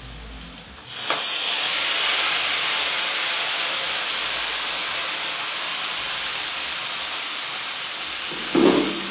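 Tomatoes going into a pan of hot oil and frying onions: a sudden sizzle starts about a second in and eases off slowly, with a short knock near the end.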